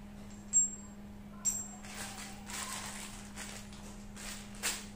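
Small metal fittings clinking down on a tiled floor twice, each with a brief high ring, then a plastic bag of bolts and nuts rustling and rattling as it is handled, ending in another clink. A steady low hum runs underneath.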